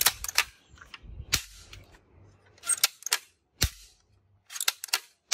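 Sharp plastic clicks and snaps from a toy ball-bullet rifle being worked by hand, coming in quick clusters of about three with short gaps between, one of them with a duller knock a little past the middle.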